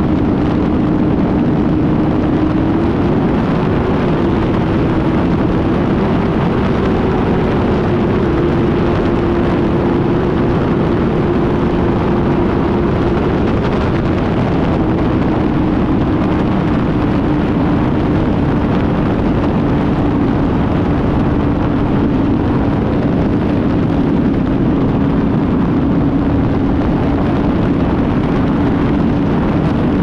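Suzuki GSX-R motorcycle cruising at a steady speed: the engine note holds an almost constant pitch, rising and dipping slightly a few seconds in, then easing a little lower, under a steady rush of wind on the camera microphone.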